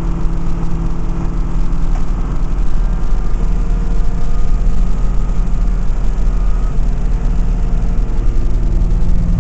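5.9 Cummins inline-six diesel of a Blue Bird All American school bus pulling under load, heard from inside the passenger cabin; its pitch climbs slowly, and it gets a little louder about four seconds in.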